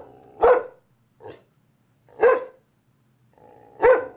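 Small dog barking at the camera: three sharp barks about one and a half to two seconds apart, with a quieter bark after the first.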